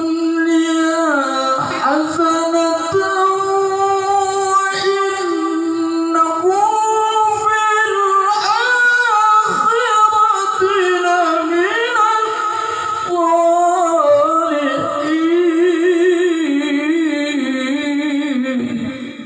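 A male qari reciting the Quran in the melodic tilawah style: one long, unbroken phrase on high held notes, with ornamented turns and a quick wavering trill on the last note. The phrase ends just before the end.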